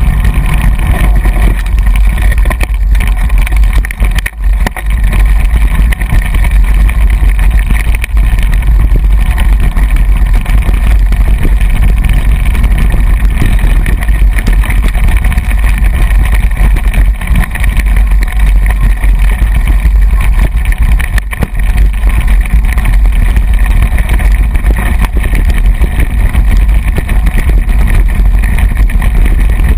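Wind buffeting the microphone of a moving camera: a loud, steady, low rumble.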